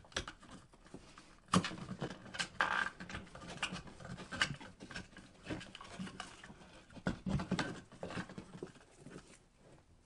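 A blue plastic old-work electrical box and its stiff sheathed cable being handled as the wires are fed into the box: irregular small knocks, clicks and scraping of plastic and wire.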